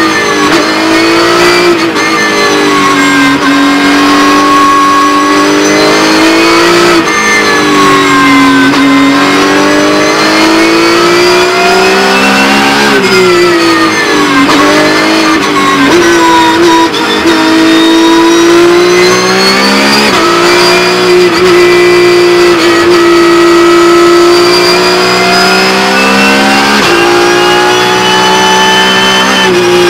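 Onboard sound of a Porsche 911 GT3 Cup race car's naturally aspirated flat-six at racing speed. The engine note climbs through the gears, drops at each upshift, then falls away as the car slows for corners, again and again.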